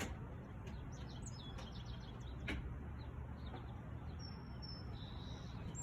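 Gusty wind blowing, a steady low rush, with birds chirping and giving a few short whistled notes about four seconds in.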